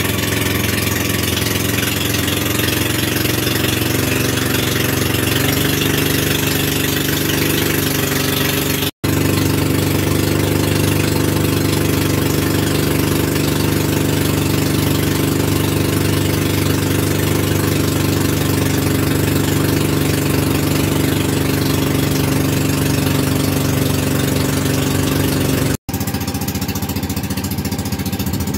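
Inboard engine of a motorised wooden outrigger boat (bangka) running steadily under way, a continuous low drone over a hiss. It drops out for an instant twice, about nine seconds in and near the end, and after the second break the low drone is thinner.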